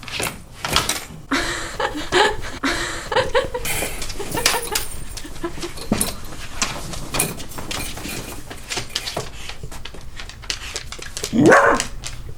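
Voices with brief laughter over scattered knocks and clicks, and one louder vocal cry about eleven seconds in.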